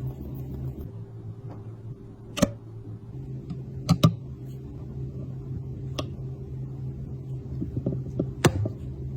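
Short sharp taps and clicks, about six at uneven intervals with two close together near the middle, over a steady low hum.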